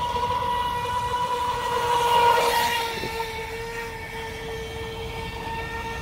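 Remote-control speed boat's motor whining as it runs across the water. It gets louder and passes about two and a half seconds in, with a brief hiss of spray, then its pitch drops slightly and it carries on steadily.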